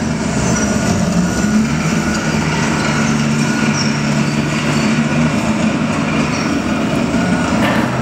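A loud, steady mechanical rumble, like a train or heavy machinery, with low droning tones that shift in pitch now and then, played as a sound effect through the hall's loudspeakers.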